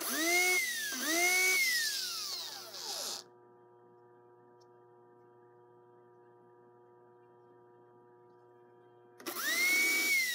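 Small electric slot-car pancake motor armature, with a small gear pushed on as a trial balance weight, whines up to speed twice in quick succession and then coasts down with a slowly falling whine. After a quiet gap of several seconds it spins up again near the end. Each run is a test by ear of how smoothly the armature turns with the weight at that spot, in the search for the best balance position.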